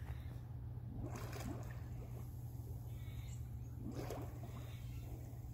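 Scuba diver's exhaled air bubbling up and breaking at the pool surface in two gurgling bursts, about a second in and again about four seconds in, over a steady low hum.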